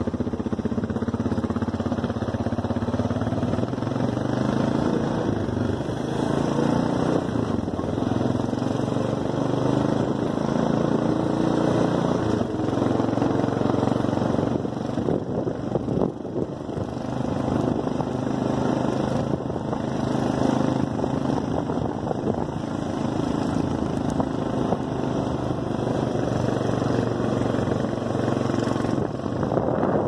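Four-wheeler (ATV) engine running steadily while riding, a continuous motor drone.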